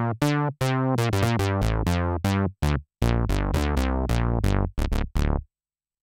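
Dave Smith Mopho x4 analog synthesizer playing its "Dual Bass" preset: a quick run of short bass notes, each with a sharp attack, played on the keyboard and stopping near the end.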